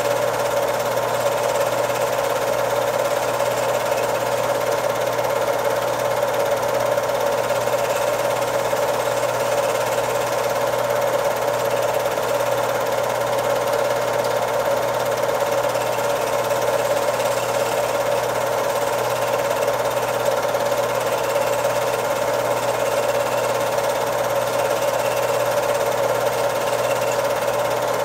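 Film projector running: a steady, even mechanical clatter with a constant hum that does not change.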